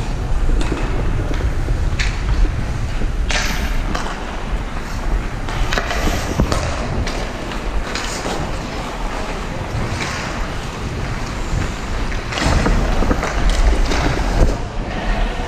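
Ice hockey skates carving and scraping on the ice through continuous play, with sharp clacks of sticks and puck every second or two.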